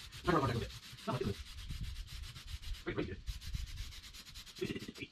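Aerosol spray-paint can hissing as flat black paint is sprayed onto an engine block, with a short break in the spray about three seconds in.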